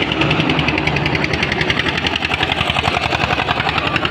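A truck's engine running at idle with a fast, even pulsing.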